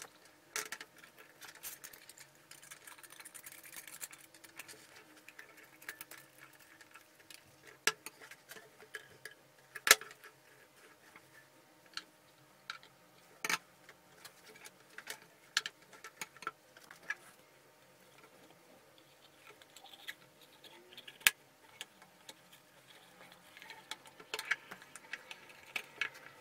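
Metal lamp parts and cable being handled on a wooden workbench during reassembly: scattered light taps and rustling, with a few sharp clicks, the loudest about ten seconds in.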